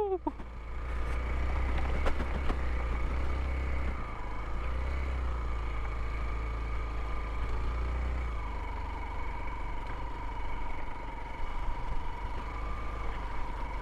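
Hero XPulse 200's single-cylinder engine running as the motorcycle is ridden, its note shifting about four seconds in and again past the middle.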